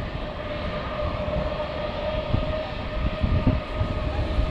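Jet airliner engines running with a steady whine, under strong wind gusting on the microphone.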